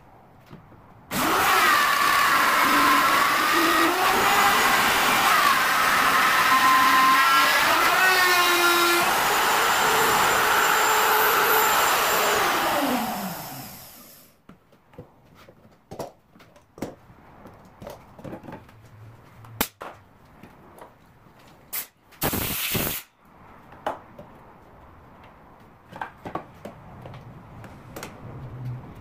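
Electric plunge router with a bearing-guided bit, switched on about a second in and cutting a recess in the wood against a template; its whine shifts in pitch under load, then winds down after about twelve seconds. Then light clicks and knocks as the tool and clamps are handled, with one short hiss-like burst partway through.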